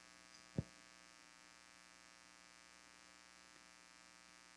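Near silence with a steady electrical mains hum from the sound system, and a single soft low thump about half a second in.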